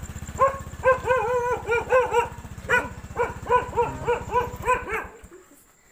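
A dog barks rapidly and repeatedly, about three barks a second, over the low running of a motorcycle engine. The barking and the engine sound both stop about five seconds in.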